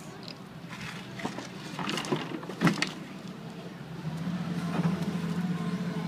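John Deere hydraulic excavator's diesel engine running, with a few sharp cracks and knocks of wood breaking and debris falling as its bucket tears into the building. The engine grows louder about four seconds in.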